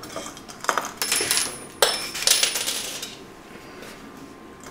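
Small metal hardware clinking and jingling: a couple of light clicks, then two clusters of clatter about a second in and just under two seconds in, each leaving a brief high metallic ring.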